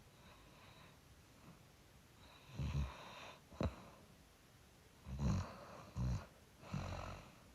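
A sleeper snoring: after a quiet start, one snore, a short sharp snort about three and a half seconds in, then three more snores close together near the end.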